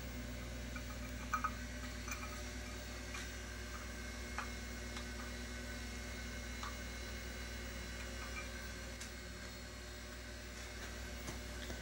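Steady low electrical hum of shop equipment, with a few faint light ticks as a steel end mill is pushed by hand into milled holes in an aluminium plate.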